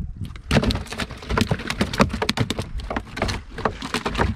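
Freshly caught fish thrashing in a plastic tub among other fish: a rapid, irregular clatter of slaps and knocks that starts about half a second in.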